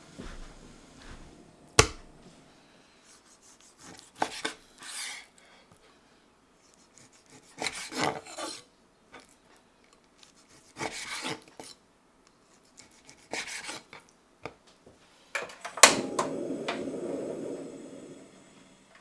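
Chef's knife slicing raw pork tenderloin on a wooden chopping board: several separate cuts a second or two apart, each a short scraping stroke ending on the wood, after a sharp knock about two seconds in. Near the end a sharp click is followed by a low steady rush for about two seconds as a wok goes onto a portable gas stove.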